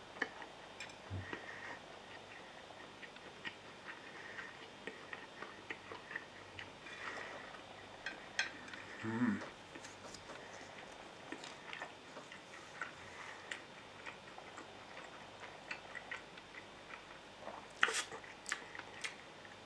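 A person chewing a mouthful of breaded, deep-fried chicken cutlet (chicken katsu), with soft mouth sounds and small scattered clicks. There are a few louder, sharp clicks near the end.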